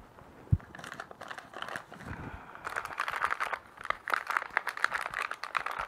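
A single low thump, then a dense, irregular crinkling and crackling of a thin plastic nursery cell pack as petunia seedlings are squeezed and pulled out of it. The crinkling grows busier after about two and a half seconds.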